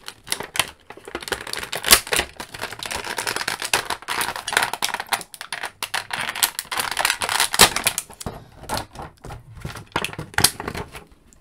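Clear plastic packaging tray crackling and clicking as it is flexed and an action figure is pried out of it: a rapid, irregular run of sharp clicks and crinkles, with a few louder snaps.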